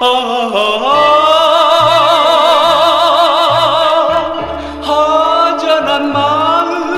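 1960s Korean pop ballad recording: a male singer holds a long sung 'ah' with wide vibrato over band accompaniment with a walking bass line, then begins the next sung line near the end.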